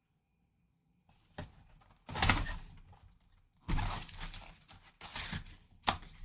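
Cardboard trading-card box being opened and its foil packs pulled out and set down: about five short scrapes and knocks of cardboard and packs.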